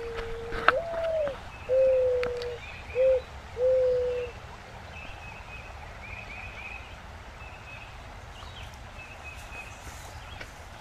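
Mourning dove singing its song once: a long coo that slides up and falls back, then three shorter, lower coos. Faint high chirps of small birds continue after it.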